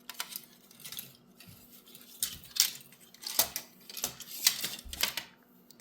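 Irregular small plastic clicks, taps and light rattles as replacement fans and their cables are handled and fitted into a graphics card's plastic fan shroud.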